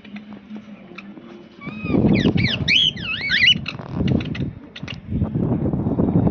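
Cockatiels chirping, a burst of quick rising-and-falling warbled whistles lasting about two seconds, with a few small clicks around it. Wind buffets the microphone with a low rumble that sets in about two seconds in and again near the end.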